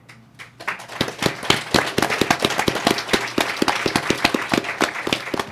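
Audience applauding: many hands clapping together, building up over the first second and then holding steady.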